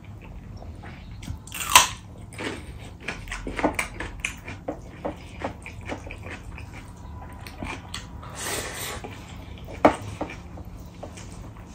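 Close-up chewing and wet mouth smacks of a person eating rice and curry by hand, with fingers squishing and mixing the rice against a steel plate. There are short, irregular clicks and smacks throughout; the sharpest comes about two seconds in, and another comes near the end.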